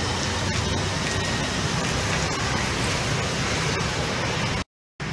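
Steady outdoor street noise: an even rushing hiss over a low, buffeting rumble. It cuts off suddenly about four and a half seconds in.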